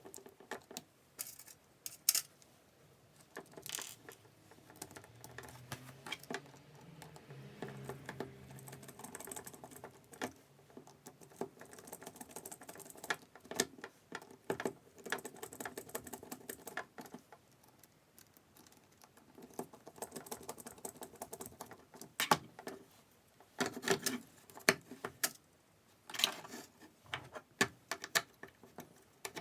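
Irregular light clicks, taps and rattles of small hard objects being handled, with a few louder clacks in the last third.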